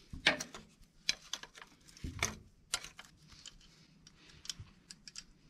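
Hand ratchet wrench clicking in short, irregular runs as a bracket bolt is loosened.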